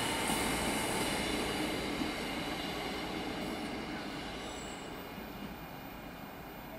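GKB S-Bahn Steiermark railcar rolling past on the station tracks, its wheels rumbling and squealing on the rails, the sound fading steadily as it moves away.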